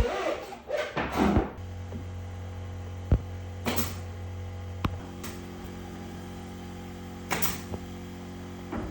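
A small electric motor, like a power tool's, switches on about a second and a half in and runs with a steady hum, with a few sharp clicks and two short hissing bursts over it; rustling handling noise before it starts.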